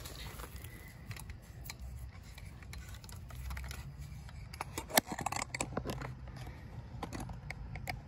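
Scattered clicks and rattles of a small black-handled hand tool being handled, the loudest a sharp click about five seconds in, over a steady low rumble.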